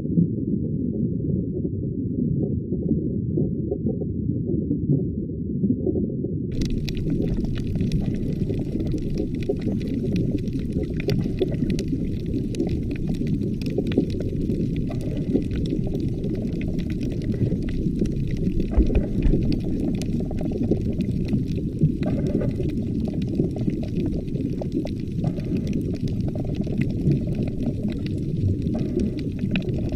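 Muffled underwater ambience: a steady low rumble and gurgle of water. From about six seconds in, a faint crackle of small clicks sits above it.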